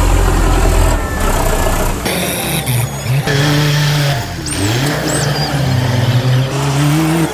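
Vehicle engine sound, loud, rising and falling in pitch as it revs up and down, with a couple of short high squeaks around the middle.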